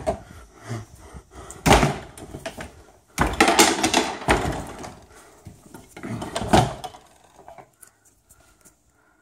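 Indoor door slammed shut, with loud knocks and clatters about two, three to four and a half, and six and a half seconds in.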